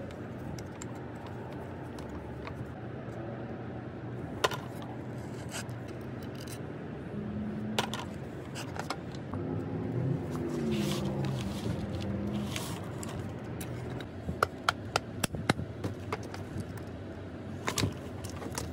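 Scattered clicks and taps of metal saw parts being handled while an old electric saw is taken apart, with a quick run of clicks near the end, over a steady low background hum.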